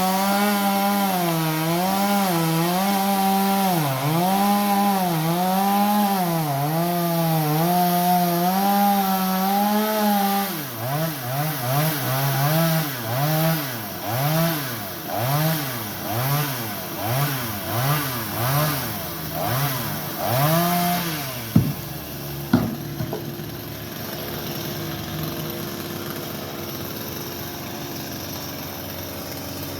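Two-stroke chainsaw cutting wood at high revs, its note sagging and recovering as it bogs in the cut. It is then revved up and down about once a second for some ten seconds. Two sharp cracks come about twenty-two seconds in, after which the saw settles to a quieter steady idle.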